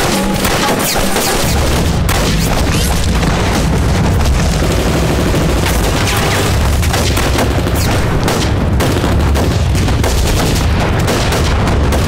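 Battle sound effects: rapid rifle and machine-gun fire with explosions, over a deep continuous rumble that swells in about a second and a half in.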